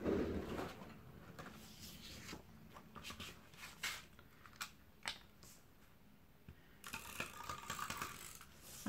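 Quiet paper handling: card sheets rustled and slid on a cutting mat, with a few light clicks. Near the end a handheld glue roller is drawn along the edge of a card panel, a steady scratchy rasp lasting about two seconds.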